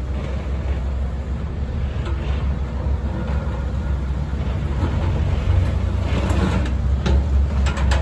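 Diesel engine of a Case tracked excavator running steadily as it works its boom and bucket, a low rumble that grows a little louder about halfway through, with a few sharp knocks near the end.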